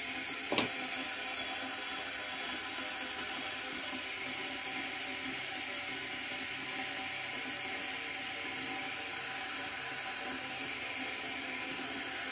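Repaired stainless-steel electric kettle heating water at full power, a steady hiss from the water nearing the boil, with a single sharp click about half a second in.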